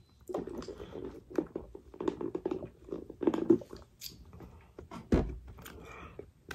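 Close-miked chewing and mouth sounds of a man eating fried chicken, irregular wet smacks and clicks. A single low thump comes about five seconds in.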